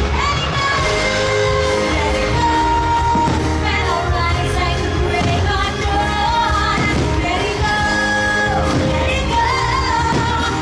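A fireworks show's soundtrack: pop-style music with a singing voice, played loud and steady over the show's loudspeakers.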